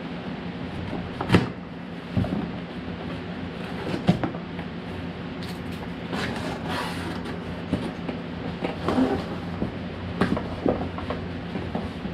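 A cardboard shipping box being opened by hand: knocks and thumps of the cardboard as it is handled, and packing tape peeled off with a tearing sound about halfway through, over a steady low hum.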